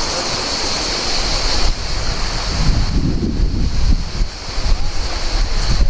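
Strong northeasterly gale buffeting the microphone in gusts over a rough sea of whitecaps and surf. A hiss rides on top for the first second or two, then drops away, leaving the gusting rumble.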